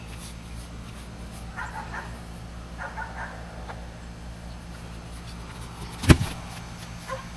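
A single sharp thump about six seconds in: a kicker's foot striking a football off a kickoff tee, the loudest sound here. Before it, a few faint short pitched sounds.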